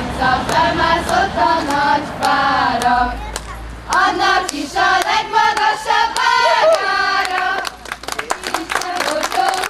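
A group of voices singing a folk song together, with hand clapping. The singing stops about three-quarters of the way through and the clapping carries on.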